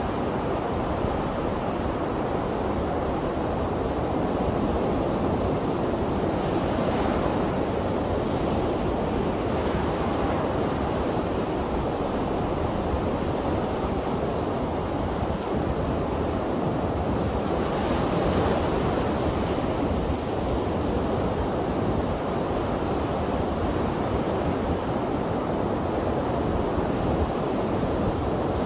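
Ocean surf breaking and washing up a sandy beach: a steady rush of water, swelling louder a little after a quarter of the way in and again a little past the middle as waves break and wash in.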